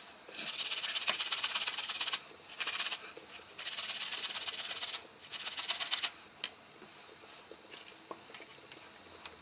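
A peeled apple being grated on a metal box grater, fast rasping strokes in four bursts that stop about six seconds in. A few light clicks follow.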